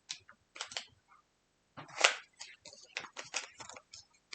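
Packaging of a facial serum being handled and opened: a run of short clicks and rustles, the loudest about two seconds in.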